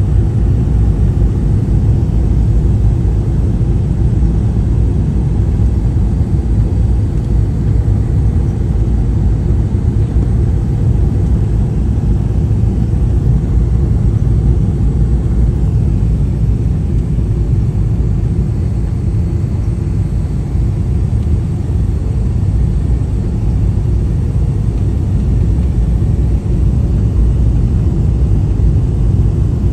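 Airliner cabin noise during the descent to land: a loud, steady low rumble that holds even throughout.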